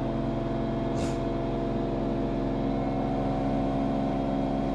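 LG 10 kg front-load washing machine running, its motor giving a very loud, steady mechanical hum of unchanging pitch: the motor noise fault the owner is complaining of. A small click sounds about a second in.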